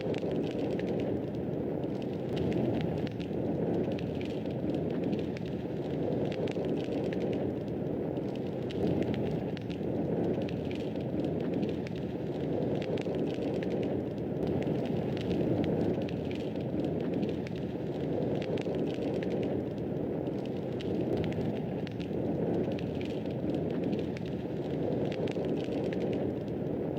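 Fireplace fire crackling: a steady low rush of flames with frequent small, irregular pops and snaps.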